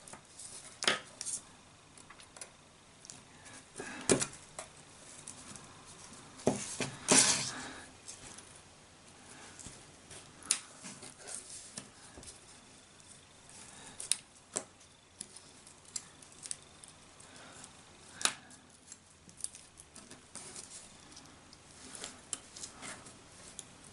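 A small hand tool cutting, scraping and prying at a SIM card's tough plastic coating, giving scattered sharp clicks and scrapes, with the loudest cluster about seven seconds in.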